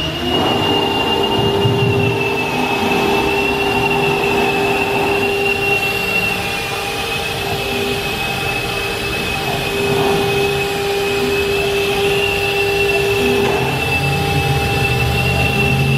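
Freedom Machine Tool Patriot CNC router running: the spindle spins up at the start, its whine rising in pitch and then holding steady over a constant high-pitched tone and a broad machine noise.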